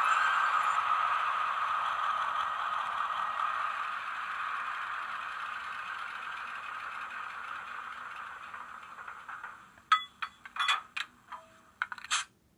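Diesel locomotive engine sound from the LokSound 4.0 decoder in a Roco H0 Siemens ER20 model, played through the model's small speaker, running down and fading away over about nine seconds. Then a quick cluster of sharp clicks and clacks near the end.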